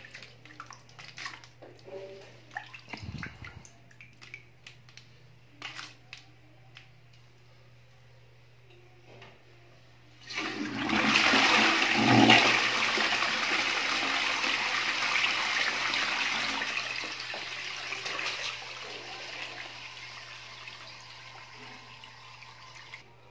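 A hand crumbles fried snack mix in the water of a toilet bowl, with small crunches and splashes. About ten seconds in, the toilet flushes with a sudden loud rush of water that eases after several seconds into a quieter refill hiss.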